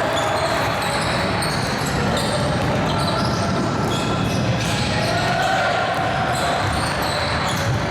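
Basketball game in a gym: a ball bouncing on the hardwood court, short sneaker squeaks, and players' and spectators' voices echoing in the hall.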